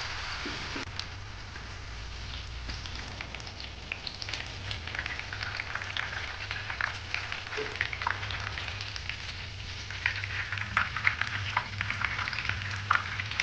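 Diced tofu frying in hot oil in a pan: a steady sizzle full of small crackling pops, which grow sharper and louder in the last few seconds. A low steady hum runs underneath.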